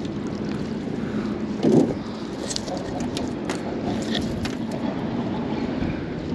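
A magnet fishing magnet and its catch of rusty rebar hauled out of the water and onto a boat: a heavy thump about two seconds in, then several sharp metallic clicks and knocks, over a steady low rumble.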